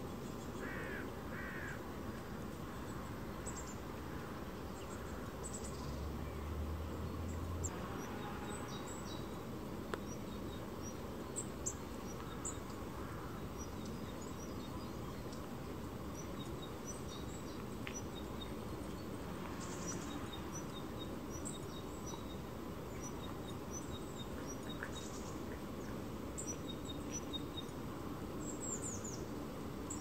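Small songbirds giving short, high chirps and tweets, scattered throughout and more frequent in the second half, over a steady outdoor background hiss.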